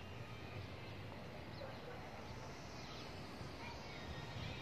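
Quiet outdoor background with a low rumble and a few faint, short bird chirps.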